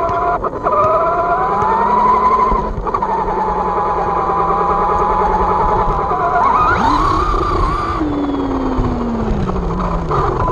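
Losi 22S short-course RC truck's electric motor whining, its pitch rising and falling with the throttle over steady tyre noise. The whine climbs sharply near the middle, then winds down steadily toward the end.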